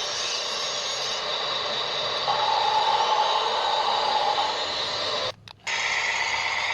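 Small electric motors and gears of a remote-controlled construction model whirring, with a steady whine coming in about two seconds in; the sound drops out for a moment near the end.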